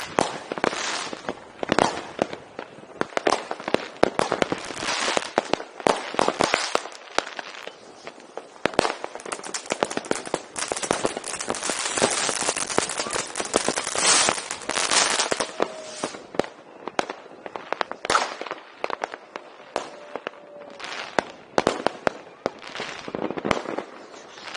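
Fireworks and firecrackers going off: a continuous barrage of irregular bangs and crackles, thickest in the middle, with the loudest bang a little past halfway.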